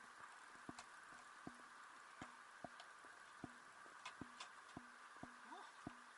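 A quiet series of short, light knocks, roughly two a second and not quite evenly spaced, over a faint steady hum.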